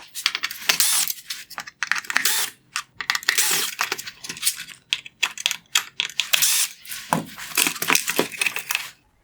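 Torx screwdriver backing out T15 screws from a plastic headlight housing: dense, irregular clicking and rattling with a few high squeaks, stopping shortly before the end.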